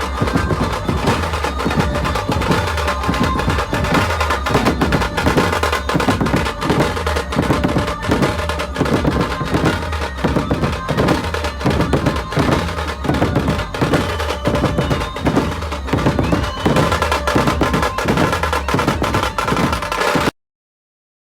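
Loud music with a steady, heavy drum beat, cutting off abruptly shortly before the end.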